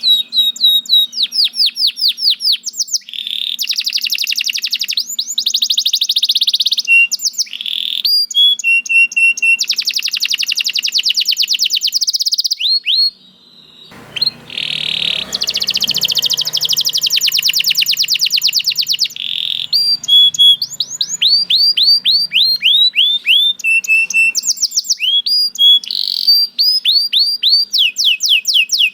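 Domestic canary singing a long, fast song of rapid trills and repeated rising and falling chirps, with a brief pause about halfway through.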